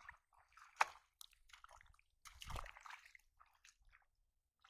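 Legs wading through shallow floodwater, in uneven sloshing splashes. There is a sharp splash about a second in and a larger slosh about halfway through.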